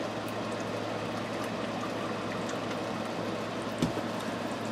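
Liquid cold-process soap batter pouring in a steady stream from a stainless steel pot into a plastic mixing bowl, with a short knock about four seconds in.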